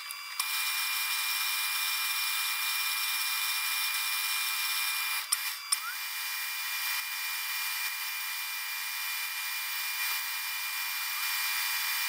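Atlas metal lathe running steadily with its spindle turning, an even whine over a hiss that breaks off briefly just after the start and again about five seconds in.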